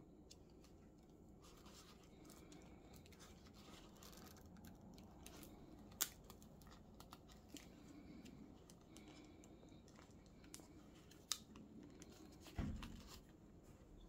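Faint scratching and rustling as a leather gaiter is worked off a BMW manual-gearbox shift knob with a utility knife, with scattered small clicks. Two sharp clicks come near the middle and later on, and a dull thump about a second before the end is the loudest sound.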